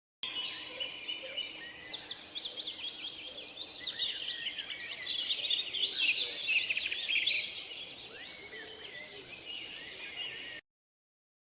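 A flock of zebra finches calling: many short, high calls overlapping in a busy chatter that grows louder toward the middle and cuts off suddenly about a second before the end.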